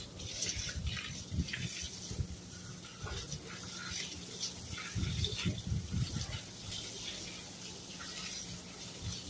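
Water from a garden hose spraying steadily onto shrubs and soil, with a few low bumps about five seconds in.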